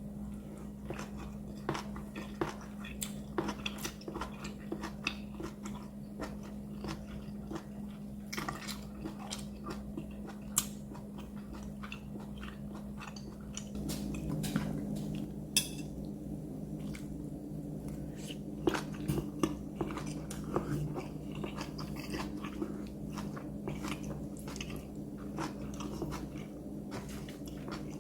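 A person biting and chewing food, with irregular crunchy clicks, over a steady low hum that thickens about halfway through.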